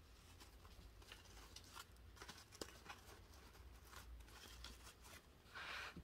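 Near silence: faint rustling and small ticks of ribbon and twine being handled and tied, with a slightly louder rustle near the end.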